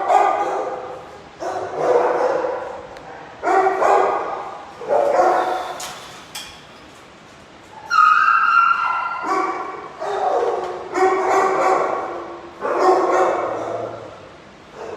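Shelter dogs in their kennels barking over and over, a bark every second or two, each fading away slowly, with a higher-pitched yelp or whine about eight seconds in.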